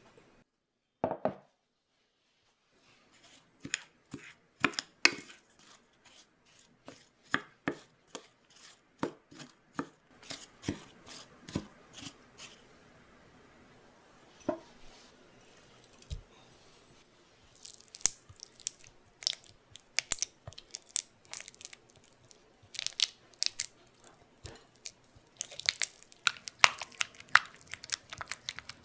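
Kitchen handling sounds: a run of sharp taps and clicks, about two a second, for roughly ten seconds. After a short pause, a silicone spatula works soft butter in a glass bowl with quick, dense scrapes and wet squishes against the glass.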